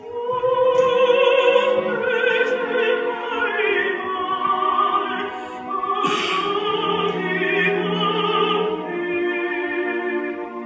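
Operatic soprano singing sustained, high phrases with strong vibrato, over quieter orchestral accompaniment.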